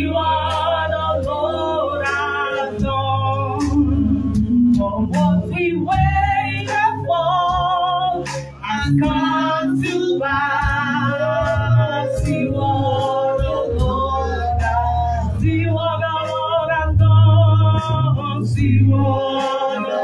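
Gospel worship song: singing with wavering vibrato over held bass notes.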